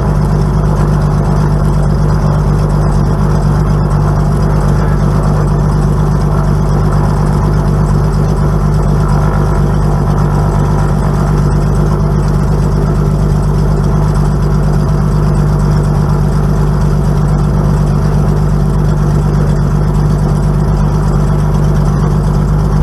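Light aircraft's piston engine and propeller running steadily, heard from inside the cockpit, with a strong steady low drone. This is the engine noise the owner noticed after the exhaust spider was replaced.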